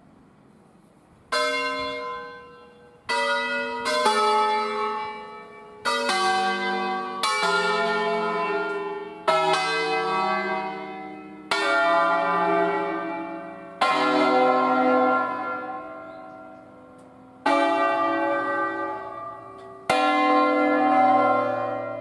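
A ring of eight church bells in C, cast by Luigi Cavadini in 1925, rung by hand. About ten single strokes of different bells sound one after another at uneven intervals, each ringing on and dying away, with the deeper bells sounding in the later strokes.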